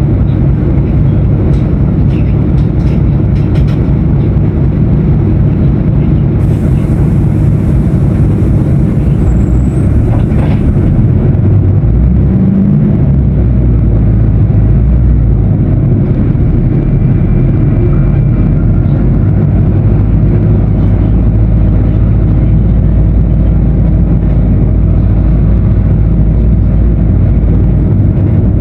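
Diesel engine of a Mercedes-Benz OF-1519 BlueTec 5 bus running, a loud steady low drone that shifts briefly in pitch about twelve seconds in. A hiss joins it from about six to eleven seconds in.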